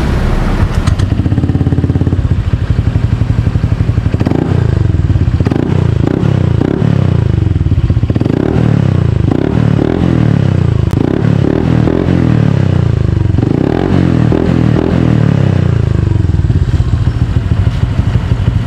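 Honda Click 125 scooter's single-cylinder engine running through a newly fitted Kvin aftermarket exhaust. It idles, then is revved in a string of short throttle blips for about twelve seconds, each rising and falling back, before it settles to idle again near the end. The sound is full and deep ("buong-buo").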